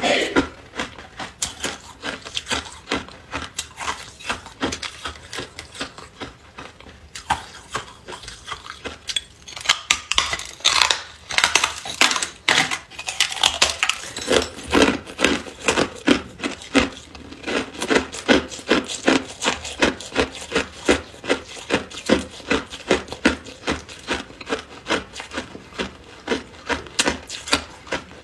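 Hard ice being bitten and chewed close to the microphone: a continuous run of sharp, crisp crunches, settling into about two to three crunches a second from about halfway in.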